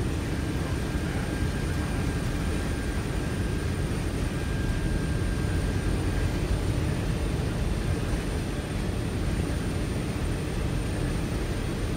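Steady cockpit noise of a C-17 Globemaster III in flight: a constant low rumble and rush from its four turbofan engines and the airflow. A thin, high, steady whine runs over it, and a fainter tone stops about halfway through.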